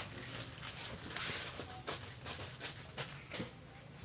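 Grocery store background noise: a steady low hum with scattered light clicks and rustles as packets are handled on a shelf.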